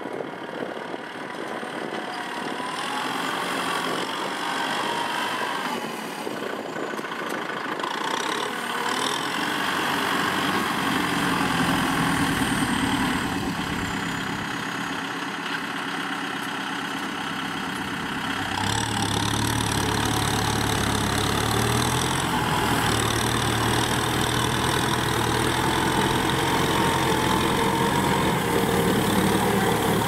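Kubota M6040SU tractor's diesel engine running steadily under load as it pulls a disc plough through the field. About two-thirds of the way through it grows louder and deeper as the tractor comes close.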